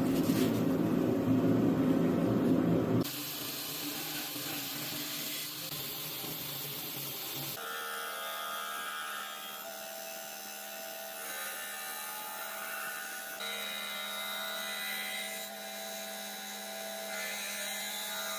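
Workshop power tools heard in a run of short cuts, changing abruptly three times, the later stretches a steady high-pitched whine of a tool running.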